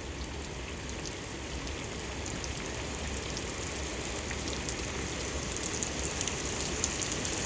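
Rain falling during a thunderstorm: a steady hiss of rain with many small drop ticks, slowly getting louder.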